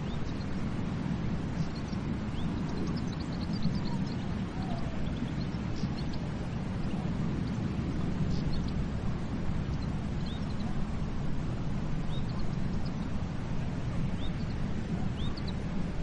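Steady wash of ocean waves on a beach, with faint short bird chirps scattered throughout.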